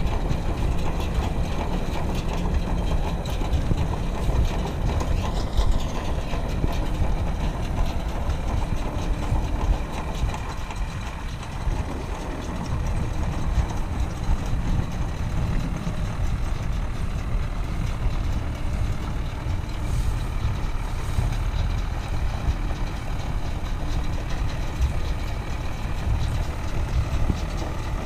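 Belarus MTZ-80/82 tractor's four-cylinder diesel engine running steadily as it pulls a working round baler through the hay windrows.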